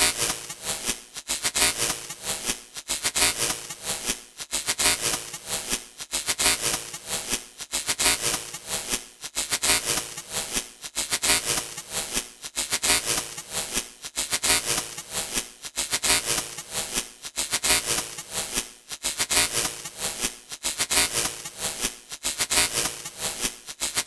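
Electronic glitch static: crackling noise that stutters and cuts in rapid, irregular bursts.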